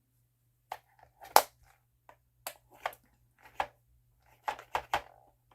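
Nail drill bits being set into the holes of a drill bit holder: about ten sharp, irregular clicks and taps, the loudest about one and a half seconds in.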